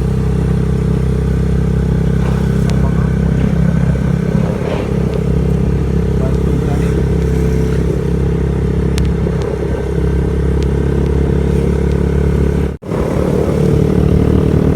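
A motor vehicle's engine running steadily, with a brief dropout near the end.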